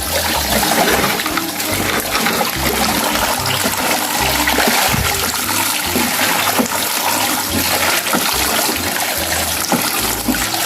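Water running steadily and splashing over a toy truck, rinsing sand off it.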